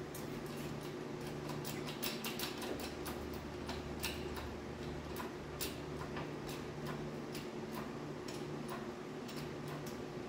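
Irregular sharp ticks and clicks, several a second, from the metal of a car body and the hoist chain as the car's front end is let down on a hydraulic engine hoist, over a steady low hum.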